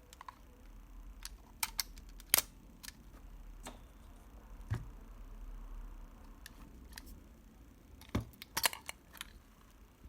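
Scattered sharp mechanical clicks and small taps from a Nikon FM2 film camera being handled and worked on. The loudest click comes about two seconds in, and a quick cluster of clicks comes near the end.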